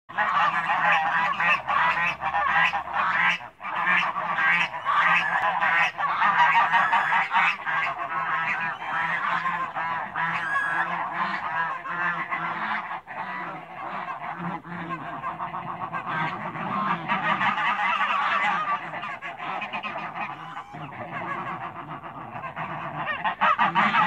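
A flock of African and Toulouse geese honking, many birds calling over one another in a constant clamour as the two groups meet at a wire fence. The honking eases somewhat in the middle and swells again near the end.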